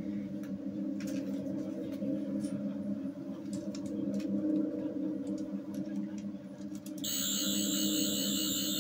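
A steady low electronic hum of a sci-fi console, with a few light clicks and taps as hands work the prop controls. About seven seconds in, a louder, high-pitched electronic whirring sound begins and keeps going.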